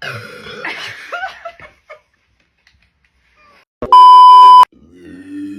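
A loud electronic bleep: one steady tone of about 1 kHz, the standard censor bleep, lasting under a second about four seconds in. Before it, about two seconds of a person's voice with laughter.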